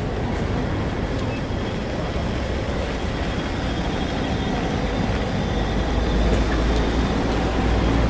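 City street traffic: a steady wash of road noise, with a low engine rumble swelling louder in the second half as a vehicle comes close.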